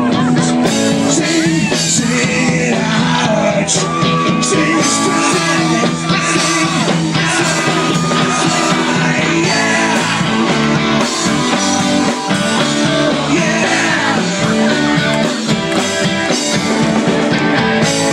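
Live rock band playing a loud, steady rock song.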